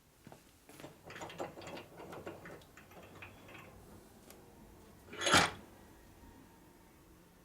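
Metal part and hand tools being handled on a workbench: a run of small clicks and scrapes, then one loud sharp knock a little past the five-second mark.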